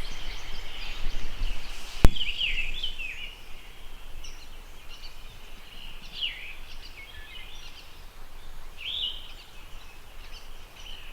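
Woodland songbirds singing: a few short whistled phrases with falling notes, spaced several seconds apart, over a steady faint background hiss. A single sharp click about two seconds in.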